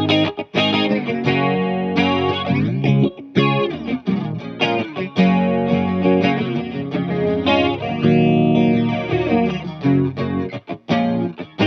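Electric guitar played through a vintage A/DA Flanger, with the flanger's sweeping, jet-like whoosh moving through the chords and notes. The playing has a few brief breaks.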